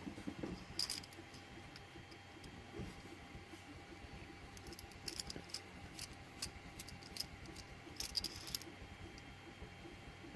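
Light metallic clicks and rattles of a Brava Oval lock cylinder being handled and worked with a screwdriver as it is taken apart. The clicks come in a few short clusters, about a second in, midway and near the end.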